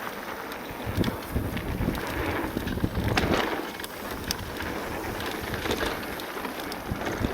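Full-suspension e-mountain bike rolling down a dirt bike-park trail: wind buffeting the microphone over tyre noise, with many scattered clicks and rattles from the bike.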